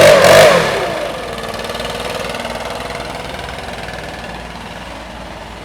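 Two-stroke leaf blower engine at high revs with a wavering pitch, then the throttle is let off about half a second in and the engine falls away to a steady idle.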